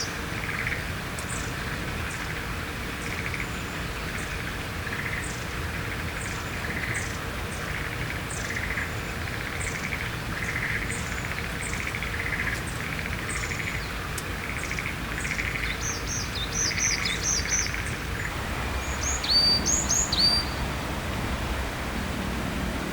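Varied tit and other small birds calling: a steady series of short buzzy notes about once a second, mixed with thin high chips. Brief high trills come around two thirds of the way in, and near the end there are two sharp whistles that fall in pitch.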